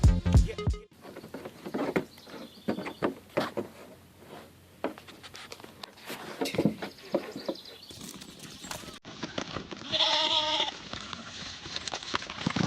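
A bleat, about a second long, about ten seconds in, with scattered knocks and clatter before it. Music stops within the first second.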